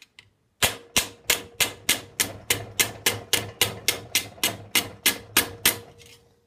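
Mallet striking a 22 gauge annealed stainless steel sheet over a metal stake clamped in a vise: about eighteen even blows at roughly three a second, with a faint steady ring under them. The blows are bending a curve into the plate.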